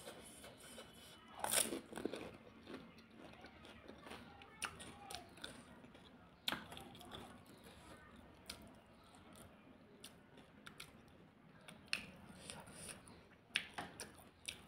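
A woman eating pani puri, heard up close: a crunch as a crisp puri filled with spiced water is bitten about a second and a half in, then chewing and lip smacks, with a few sharp clicks.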